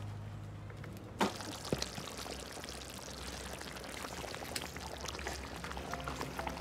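A ladle stirring and scooping thick chicken curry gravy in a clay pot: liquid sloshing and dribbling, with a sharp knock of the ladle against the pot about a second in and small clicks after it.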